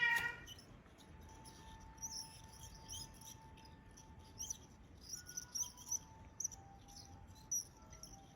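Short, high-pitched bird-like chirping squeaks at irregular intervals from a dry, worn bearing in a bicycle wheel's freehub (cassette body) as the wheel turns. This is the chirp that is usually blamed on the bottom bracket.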